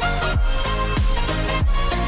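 Background electronic music with a steady beat: deep kick drums that drop in pitch about every two-thirds of a second, under held synth notes.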